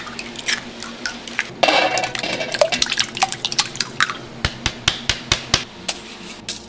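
Eggs being cracked into a metal mixing bowl: a quick run of sharp shell taps and clicks against the bowl. Wet splashes of the eggs dropping in come about two seconds in.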